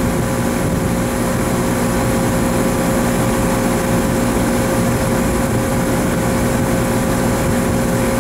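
Air-conditioning condensing unit running steadily, its scroll compressor humming with a constant tone over a steady rush of machine noise during a pump-down. The compressor runs but barely pumps down, at about 15% capacity, because gas leaks back from the high side to the low side through an internal relief valve stuck wide open.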